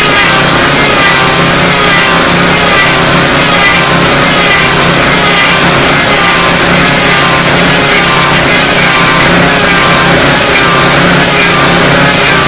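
Log lathe with a six-knife cutter head rounding a spinning cedar log: a loud, steady noise of knives chipping bark and wood, over a constant hum from the machine.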